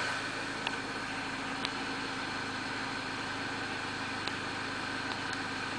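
Peugeot RCZ's 1.6 THP turbocharged four-cylinder engine idling steadily, with a few faint sharp ticks.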